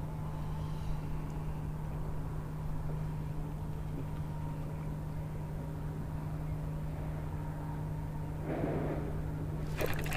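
Electric bow-mount trolling motor running with a steady hum. A brief rustle of handling comes near the end.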